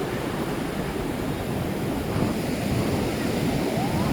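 Ocean surf washing onto the shore in a steady rushing noise, with wind buffeting the microphone.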